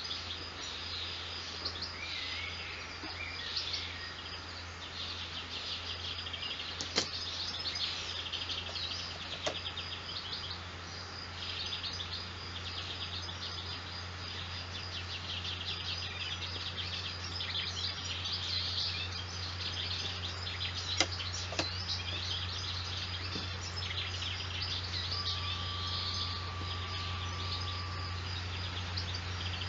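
Several small birds chirping and trilling continuously over a steady low hum. A few sharp clicks come through, and near the end a single steady high tone holds for about three seconds.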